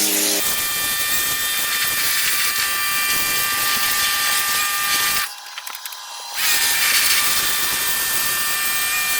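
Sun Joe SPX2004 electric pressure washer running: its motor and pump whine steadily under the hiss of the water jet. It stops for about a second a little past halfway, then starts up again.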